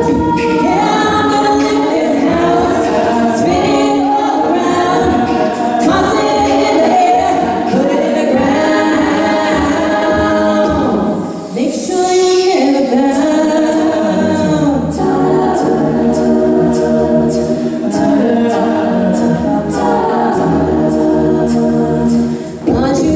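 All-female a cappella group singing close harmony behind a lead voice, with a beatboxer's vocal percussion. A steady run of hi-hat-like clicks drives the second half.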